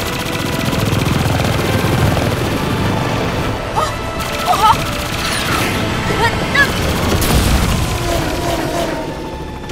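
Animated aerial-battle soundtrack: rapid gunfire and booms from fighter planes over driving action music.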